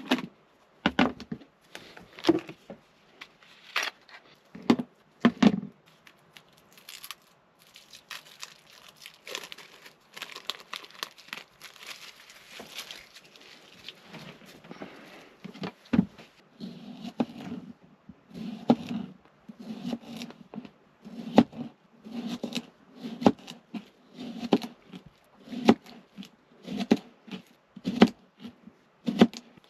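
Plastic packaging crinkling and being torn open, among scattered knocks of things handled. In the second half come soft, regular knocks about once a second.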